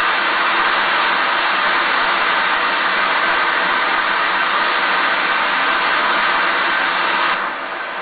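Steady rush of a waterfall: an even, loud hiss of falling water that drops abruptly in level near the end.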